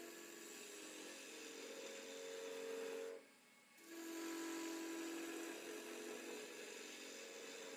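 Skew chisel shaving a spinning wooden blank on a lathe: a steady cutting sound with a held tone. It stops for about half a second around three seconds in as the tool comes off the wood, then starts again.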